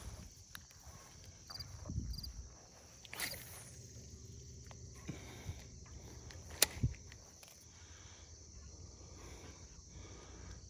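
Faint footsteps and handling noise on a grassy, stony shoreline: scattered soft knocks and rustles, with one sharp click about two-thirds of the way in.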